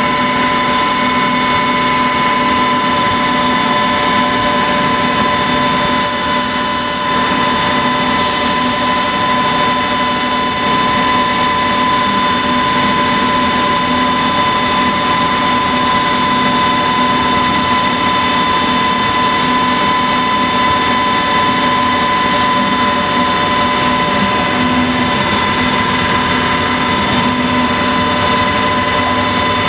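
CNC lathe running a machining cycle on a primer module: the spindle turning at speed with a steady whine as the tools cut the small part. A few brief higher-pitched sounds come in between about six and eleven seconds in.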